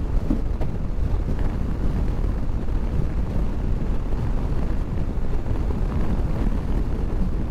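Motorcycle being ridden at steady road speed, its engine and road noise mixed with wind buffeting the helmet microphone.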